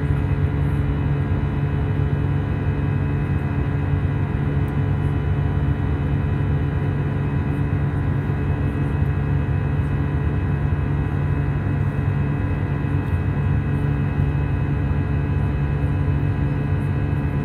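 Airbus A320 jet engines at climb power heard from inside the cabin: a steady drone of several held tones over a low rumble, unchanging throughout.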